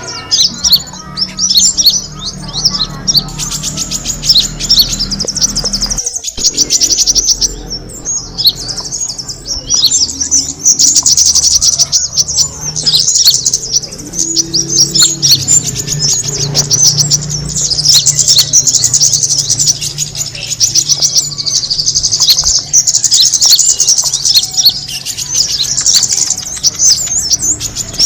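Small songbirds chirping and twittering, rapid high-pitched calls packed densely together without a break, over a steady low hum.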